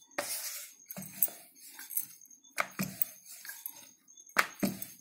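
Wooden rolling pin working paratha dough on a wooden board: irregular knocks and clicks as the pin rolls, taps and is set down, with the dough slapped and pressed by hand.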